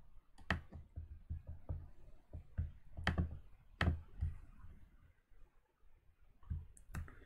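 Computer mouse clicking at an irregular pace, a dozen or so faint clicks with a few sharper ones, against quiet room tone.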